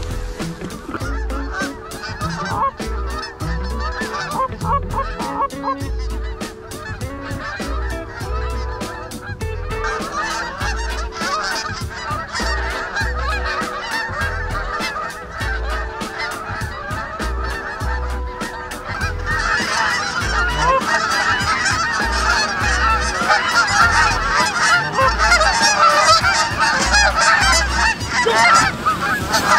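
A large flock of geese honking overhead, many birds calling at once, the calling growing denser and louder in the last third as the flock comes in close.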